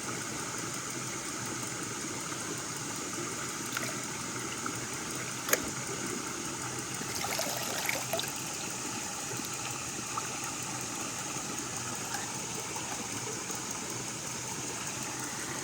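Stream water flowing steadily, with a sharp click about five and a half seconds in and a few faint knocks a couple of seconds later.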